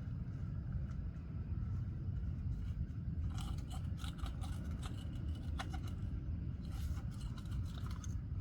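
Scattered metal clicks and scrapes from handling the broken parts of a failed CV axle joint, starting about three seconds in, over a steady low rumble.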